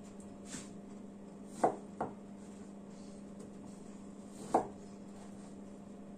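Kitchen knife cutting firm, peeled pear into pieces on a plastic cutting board: a few separate sharp knocks at uneven intervals, the loudest about a second and a half in and again near four and a half seconds, over a steady low hum.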